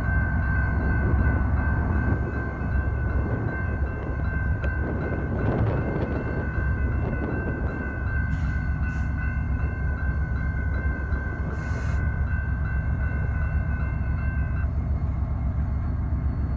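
Railroad crossing warning bell ringing over the low rumble of a train. The bell cuts off near the end as the crossing gates start to rise, the signal that the train has cleared the crossing.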